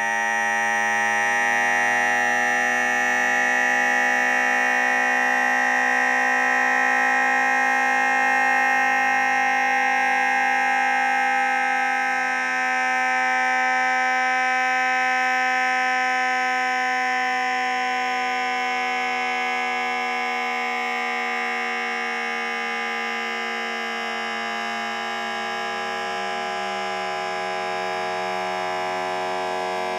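A human cough digitally time-stretched many times over into a steady drone of many held tones, with no breaks; it eases slightly in loudness in the second half.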